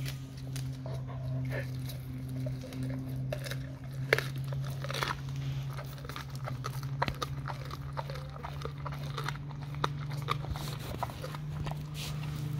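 Dog chewing and crunching a raw salmon head, with irregular sharp cracks of bone and wet licking and mouthing sounds. A steady low hum runs underneath.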